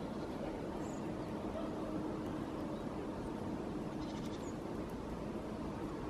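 Great spotted woodpecker pecking at a spruce cone wedged in a tree-trunk anvil: a quick run of light taps about four seconds in, over a steady low background rumble.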